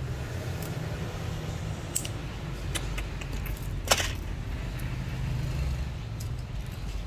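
Scattered small clicks and taps, the sharpest about four seconds in, over a steady low hum.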